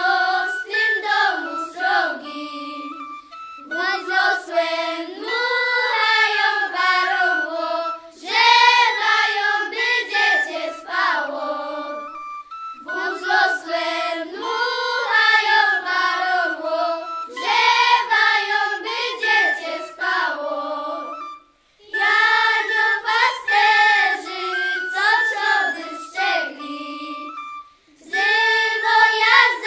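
A children's folk singing group singing together in unison, phrase after phrase with short breaks between lines, with heligonka (diatonic button accordion) accompaniment.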